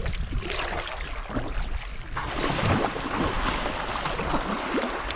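Sea water splashing and rushing as a pod of dolphins breaks the surface right beside a kayak; the rushing grows fuller about two seconds in.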